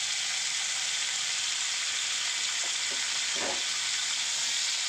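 Chopped tomatoes and onions frying in hot oil in a kadai: a steady sizzle.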